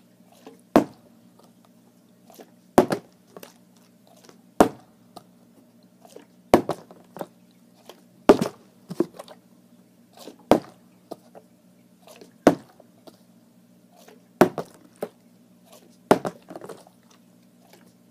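Plastic water bottle being flipped and landing with a sharp thud about every two seconds, some landings followed by a short clatter. A steady low hum runs underneath.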